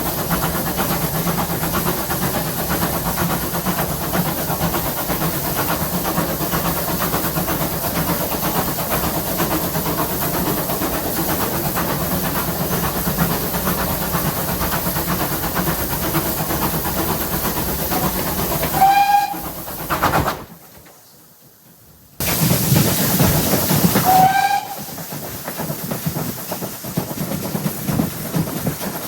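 GWR pannier tank steam locomotive No. 7754 running with a steady rumble and hiss, then two short blasts on its steam whistle about five seconds apart. The whistle blasts are the loudest sounds, and the sound cuts out for about two seconds between them.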